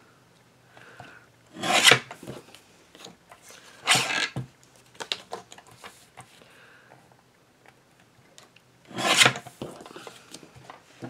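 Paper trimmer's sliding blade run along its rail three times, each a quick cut through card and construction paper lasting about half a second, with light paper handling between the cuts.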